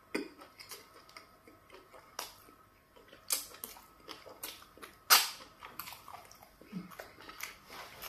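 Close-up eating sounds from fufu and garden egg soup eaten by hand: wet chewing, lip smacks and sharp sucking clicks as soup is licked off the fingers. The loudest smack comes about five seconds in.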